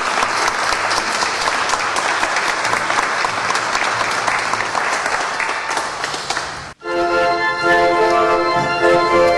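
Congregation applauding for about seven seconds, then a sudden cut to organ music playing sustained chords.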